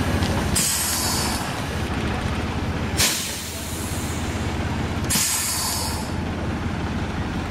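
MCW double-decker bus's diesel engine running as the bus moves slowly, with three hisses of released air from its air brakes, roughly every two seconds.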